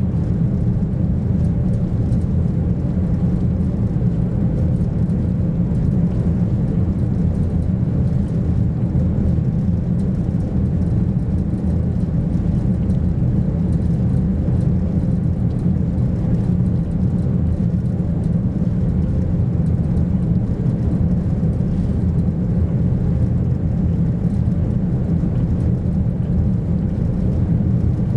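Steady low drone heard inside the passenger cabin of the high-speed jetfoil "Ai" cruising at speed: engine and running noise, unchanging throughout.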